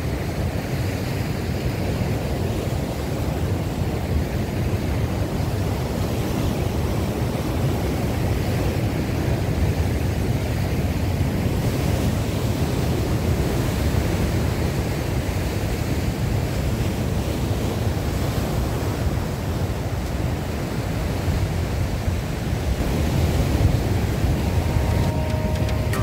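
Strong wind buffeting the microphone, a steady low rumble over the wash of surf breaking on rocks.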